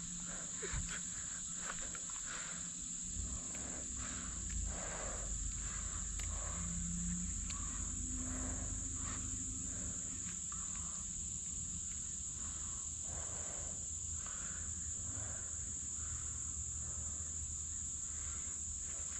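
Insects trilling in a steady, high-pitched chorus, with faint soft rustles every second or so and a low rumble underneath.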